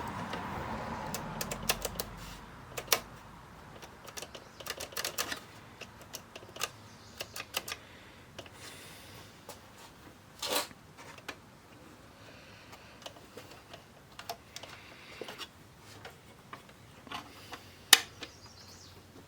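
Irregular small clicks and clatters of hard plastic parts and screws being handled while a boombox is taken apart, with a short scrape about halfway through and one loud click near the end.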